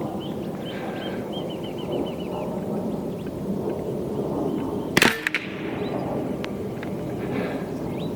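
A single shot from a Hatsan Invader Auto .25 pre-charged pneumatic air rifle, one sharp crack about five seconds in. Birds chirp faintly over a steady outdoor background.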